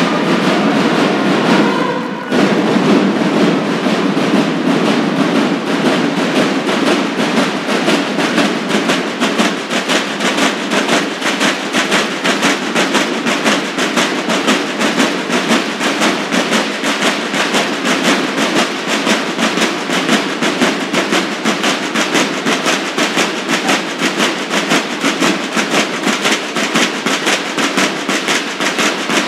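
Percussion music: drums playing a fast, steady, rhythmic beat.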